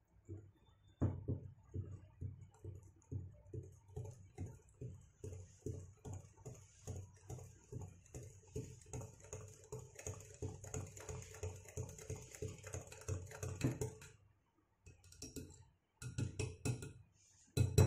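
Wire whisk beating thick cake batter in a glass bowl, in rhythmic strokes about two or three a second. It stops about 14 seconds in, then gives a few more strokes near the end.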